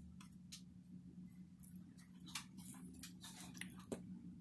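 Faint short scratches and rustles of a felt-tip marker and a hand moving on paper, about a dozen scattered strokes, over a low steady hum.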